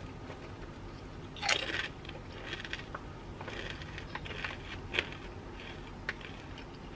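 A person biting into a potato chip, with a sharp crunch about one and a half seconds in. Then quieter crunching as the chip is chewed, with a few small crackles.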